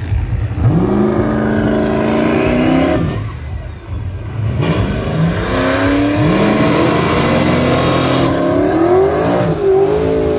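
Drag race car engines revving at the starting line. The pitch climbs and holds steady, falls away about three seconds in, then climbs again a couple of seconds later and holds higher toward the end.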